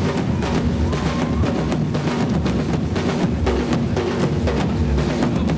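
Drum ensemble playing a fast, dense rhythm of rapid drum strikes.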